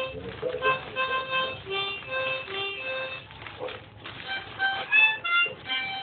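Harmonica held in the mouth and played hands-free: a tune of short phrases, with notes that change pitch and some held for about half a second.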